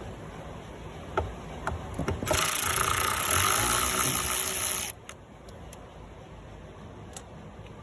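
A few sharp metal clicks of hand tools, then a power tool runs for about two and a half seconds and cuts off suddenly.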